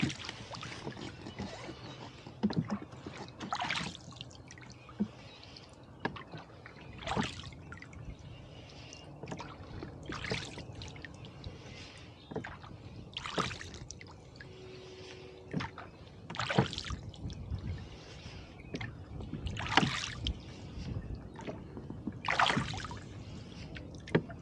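Oars of a rowboat stroking through calm lake water, a splashing swish about every three seconds, with light knocks between strokes.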